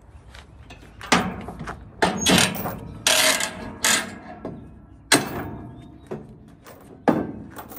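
Steel tie-down chain and a lever-type load binder being worked with a cheater bar: several sharp metal clanks and chain rattles on a wooden trailer deck as the binder is levered tight and the bar is pulled off, with a longer rattle about three seconds in.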